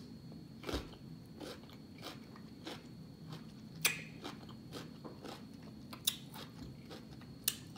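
Chewing a mouthful of raw cucumber, a string of crisp wet crunches about every half second, the loudest about four and six seconds in.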